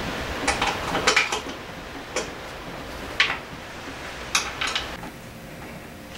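Hand tools and small metal parts clinking and tapping during reassembly of an outboard motor: a handful of short, sharp metallic clinks, several close together about a second in, then single ones every second or so.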